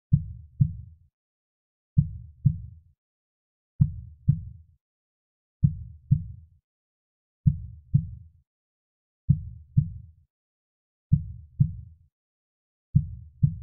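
Slow, soft heartbeat: deep paired lub-dub thumps, the two beats about half a second apart, the pair repeating steadily about every two seconds with silence between.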